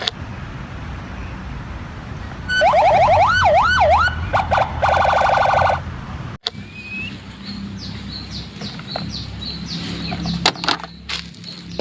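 Toy police car's electronic siren, starting about two and a half seconds in: a few seconds of wailing tones rising and falling, then a fast warble, before it stops. Later come a row of short, high electronic chirps and a few clicks.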